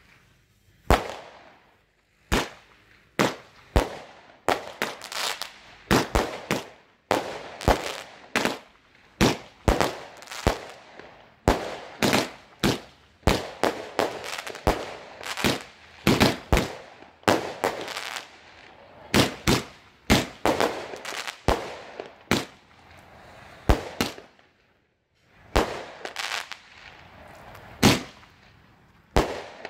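Small consumer repeater fireworks firing shot after shot into the air: sharp bangs about one or two a second, with hissing between them and a brief lull about 25 seconds in.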